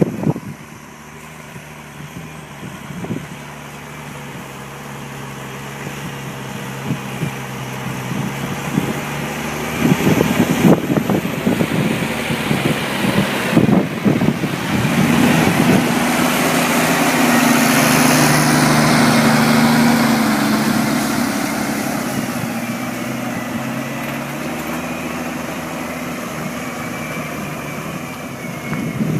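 Deutz-Fahr Agrotron TTV 610 tractor's diesel engine running under ploughing load, growing louder to a peak about two-thirds of the way through and then easing off as it goes past.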